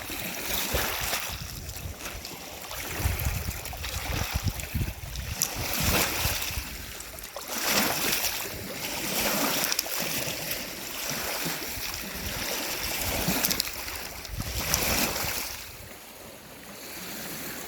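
Lake Superior waves washing onto a rocky shore in irregular surges every second or two, with wind rumbling on the microphone.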